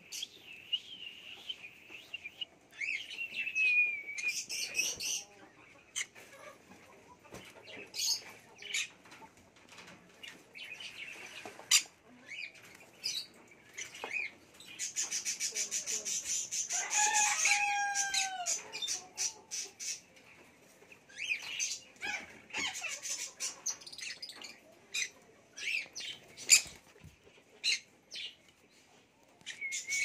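Pineapple green-cheeked conures in an aviary: scattered short chirps and clicks, with a wavering high tone in the first few seconds and a longer, louder call falling in pitch about 15 to 18 seconds in.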